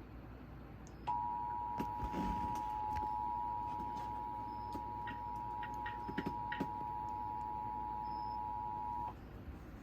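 Emergency Alert System two-tone attention signal: two steady tones sounding together for about eight seconds, starting about a second in and cutting off cleanly, the warning that announces the Required Monthly Test.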